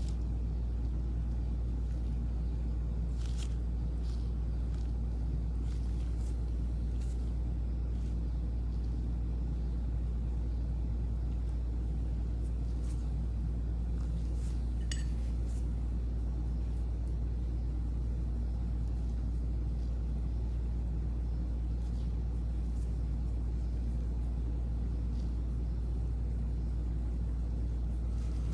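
Steady low hum, with a few faint light clicks and taps scattered through it.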